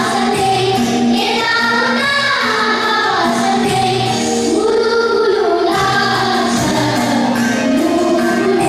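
A Nepali song sung over instrumental accompaniment: a melodic vocal line above sustained tones and a steady repeating low beat.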